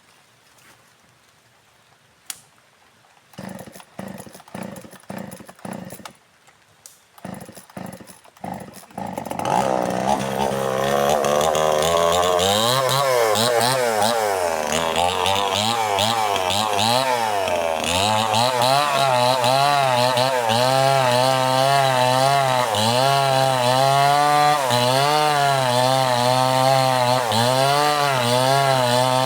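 Chainsaw engine: a few short sputters, then it catches about nine seconds in and runs loudly, its engine note rising and dipping over and over as it cuts branches.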